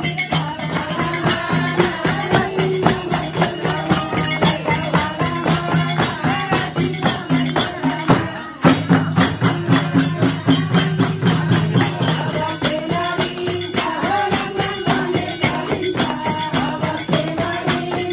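Bhajan: voices singing a Hindu devotional song over a steady beat of jingling hand percussion, with a brief break about halfway through.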